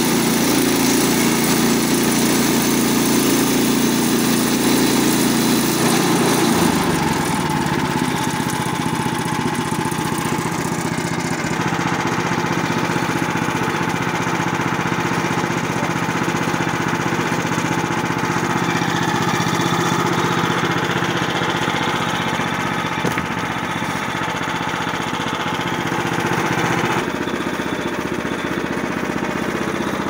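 Frontier OS23 portable bandsaw mill's petrol engine running steadily while the band blade is pushed through an ironbark log. Its tone changes about six seconds in and again near the end.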